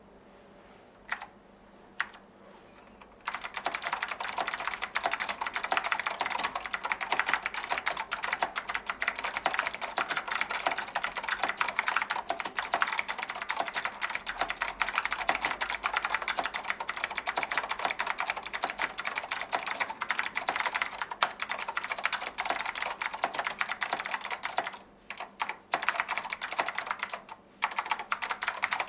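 Fast, continuous typing on a Datacomp DFK-777NA keyboard with stock, clicky Alps SKCM Blue switches and doubleshot ABS keycaps. Two single key presses come first, then rapid typing starts about three seconds in and runs on, with two brief pauses near the end.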